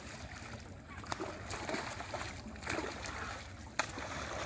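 Trapped fish thrashing at the surface inside a staked enclosure net, making a run of irregular, sharp splashes about a second apart.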